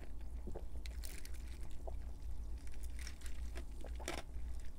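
Close-miked sipping of soda from a glass: a string of short wet slurps and clicks over a low steady hum.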